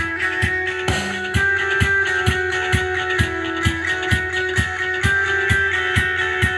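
Instrumental passage of a song with guitar over a steady drum beat, about two kicks a second, played back through a Blitzwolf BW-WA3 Pro portable Bluetooth speaker.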